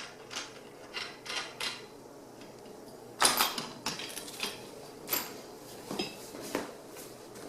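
Metal hardware and frame parts of a chainsaw mill being handled during assembly: irregular clinks and knocks of bolts, nuts and washers against the rails, with a louder cluster about three seconds in.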